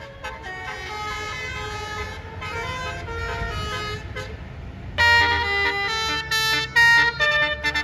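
Bus basuri telolet horn, a set of electric trumpet horns, playing a tune of short stepped notes over a low engine rumble; about five seconds in a louder horn tune cuts in abruptly.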